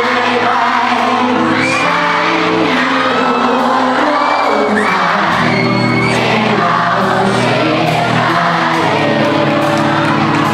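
Live rock band playing: a male singer sings through a microphone over electric guitar, bass guitar and drums.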